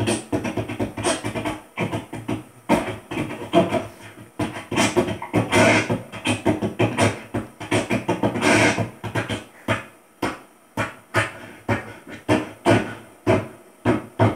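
Beatboxing into a handheld microphone: a quick rhythmic string of vocal pops and clicks, with breathy hissing stretches about five and eight seconds in, and a sparser, more even beat near the end.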